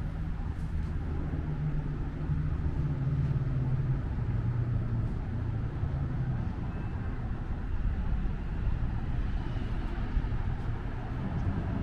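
Street traffic with a motor vehicle's engine running, a steady low rumble whose pitch shifts slightly now and then.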